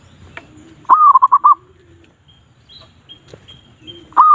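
Zebra dove (perkutut) song played loudly from an MP3 lure player: twice, about three seconds apart, a drawn-out opening note and then a quick run of four or five short notes. Fainter low cooing is heard between the calls.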